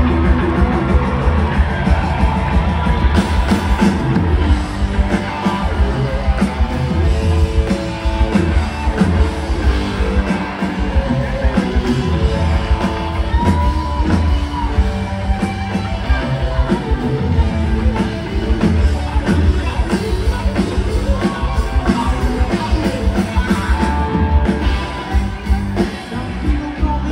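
Live rock band playing loud and steadily, with heavy drums and bass under sustained guitar or keyboard lines.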